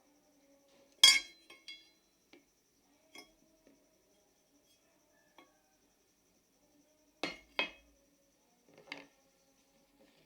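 Small metal parts and tools clinking and tapping on a hard work surface during hands-on work on an electric grinder: one loud, ringing clink about a second in, a few light taps, a quick pair of clinks later and one more near the end.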